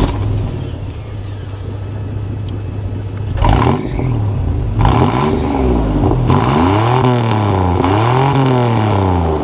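1993 Toyota 4Runner's engine just after start-up, idling and then revved several times. A short blip comes about three and a half seconds in, then a series of revs that climb and fall. It runs through factory exhaust with holes in it: an exhaust leak.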